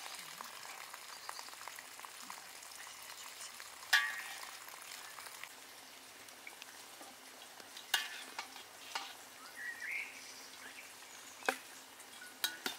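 Rose jam sizzling as it cooks in a pot, a steady hiss, with a few sharp knocks of a utensil against the pot; the loudest comes about four seconds in.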